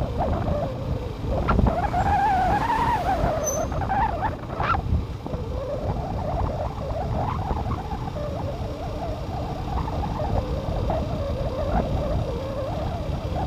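Wind buffeting the microphone of a phone riding along on a moving vehicle: a heavy low rumble with a wavering whistle over it, and road and running noise underneath.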